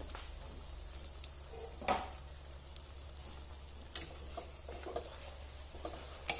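Poori paratha frying in hot oil with a faint sizzle, and a spatula knocking against the pan a few times as the bread is worked and turned; the sharpest knocks come about two seconds in and near the end.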